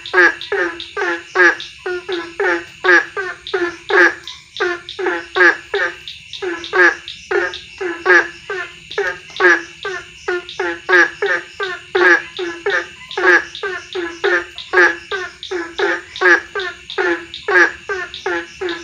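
A chorus of frogs, the kind known locally as kodok tungtet, calling loudly in quick repeated croaks, about two to three a second, with a couple of short pauses. A steady high-pitched drone runs behind them.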